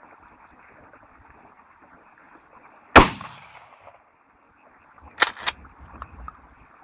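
A pump-action shotgun fires a single shot about three seconds in, the report trailing off over about a second. About two seconds later come two short sharp clacks a third of a second apart: the pump being worked back and forward to chamber the next shell.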